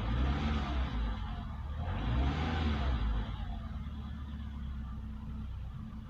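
Renault 1.4 petrol engine running on freshly changed spark plugs, heard from the driver's seat: engine speed rises and falls twice in the first three seconds, then settles to a steady idle.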